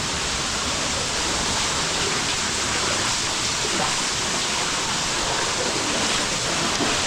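Waterfall pouring down into a creek in a canyon: a steady, loud rush of falling water.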